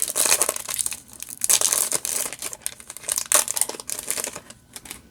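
Foil booster pack wrapper crinkling and tearing as it is opened, in irregular bursts of crackle that die away near the end.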